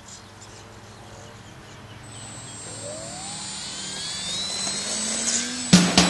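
Radio-controlled Yak 55 model plane's motor and propeller running up for takeoff, growing steadily louder with a rising pitch. Loud music cuts in suddenly near the end.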